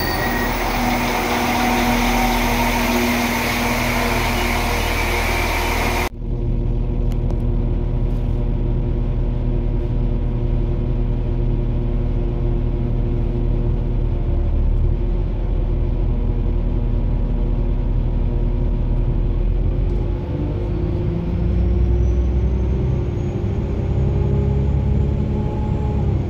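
Steady low rumble of a vehicle under way, with a sudden change in the sound about six seconds in where the hiss drops away.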